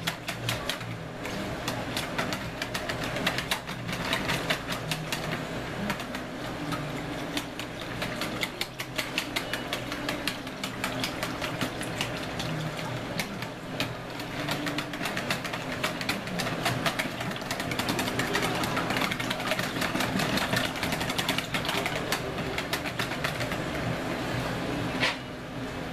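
Wire whisk beating barbecue sauce in a plastic bowl: a fast, steady clatter of the metal tines against the bowl, stopping near the end.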